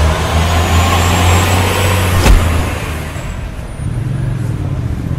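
Street traffic: a heavy road vehicle's engine rumbling low and steady, with one sharp knock about two seconds in. The rumble eases off a second later.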